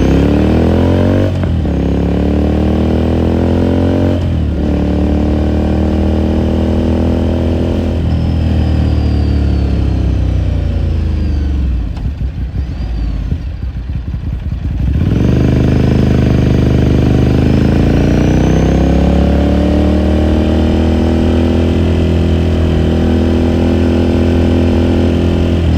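Ducati Scrambler Sixty2's air-cooled L-twin pulling up through the gears, with two upshifts about one and four seconds in. It holds steady, rolls off the throttle and eases down for a few seconds near the middle, then accelerates again and cruises.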